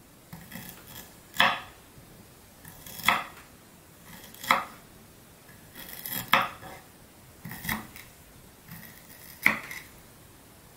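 Kitchen knife chopping peeled ginger into small pieces: about six sharp strokes a second and a half or so apart, with lighter taps between them.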